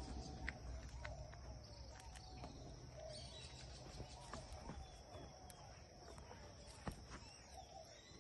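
Faint outdoor farmyard ambience: birds calling over and over in short wavering notes, with a steady high hiss and a few light clicks.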